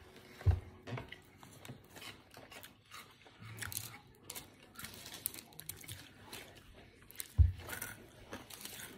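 A person biting into and chewing a Whopper Melt sandwich, with many small wet mouth clicks and smacks. Two dull thumps stand out, one about half a second in and a louder one near the end.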